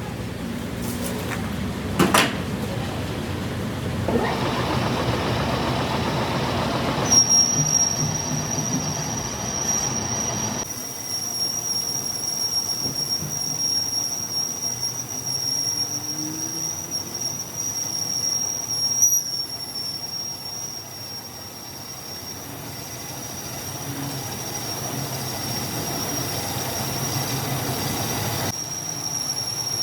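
Metalworking machine noise with a steady high-pitched squeal that starts about a quarter of the way in, typical of a cutting tool working steel, heard in several abruptly cut takes.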